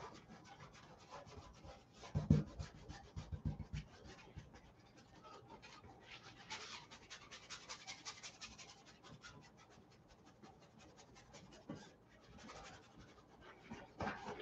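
Oil-paint brush scratching and rubbing across a canvas in many short, quick strokes, busiest in the middle. A few low thumps come about two to four seconds in.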